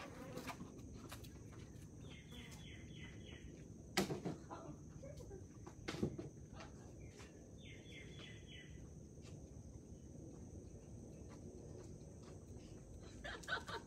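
Quiet outdoor background in which a bird twice gives a short trill of about five quick notes, some five seconds apart. Two sharp knocks sound between the calls.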